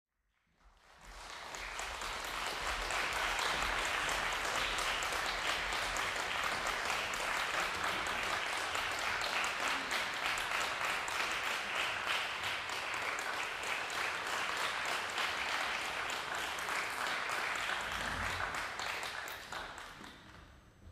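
Audience applauding, swelling in over the first two seconds and dying away near the end.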